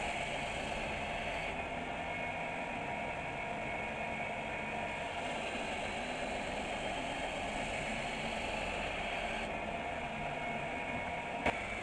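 A steady mechanical running noise, even and unbroken, with one sharp click near the end.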